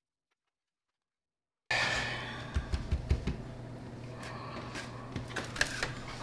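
Dead silence for under two seconds, then quiet room tone with a steady low hum and a few soft thumps and clicks.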